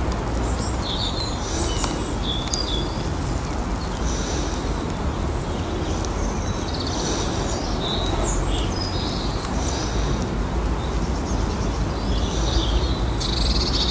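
Small birds chirping in short repeated calls, over a steady low rumble.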